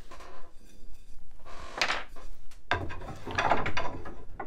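Wooden knocks and scraping as a spindle blank is held in a benchtop shave horse and worked with a draw knife, roughing it down. A short scrape comes about two seconds in, then a longer stretch of scraping and knocking.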